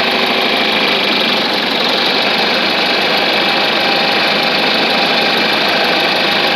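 Old John Deere tractor engine running steadily and loudly.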